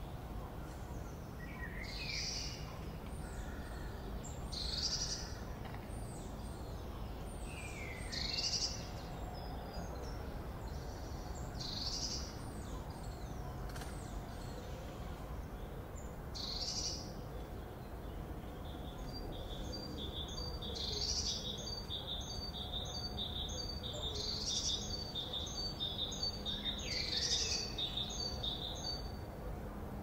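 Park morning ambience: birds chirping and calling every few seconds over a steady low background noise. About two-thirds of the way in, one bird starts a fast run of short repeated notes, roughly three a second, that carries on to the end.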